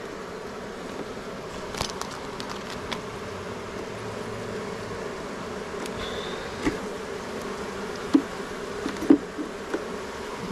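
Honeybees buzzing steadily around an open hive being inspected, with a few short sharp knocks near the end.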